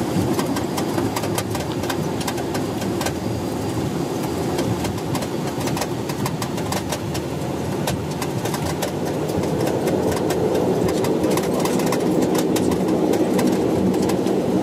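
Bombardier Dash 8 Q400's Pratt & Whitney PW150A turboprop engines and propellers running steadily on the flight deck while taxiing, with many small clicks and rattles. The hum grows slightly louder near the end.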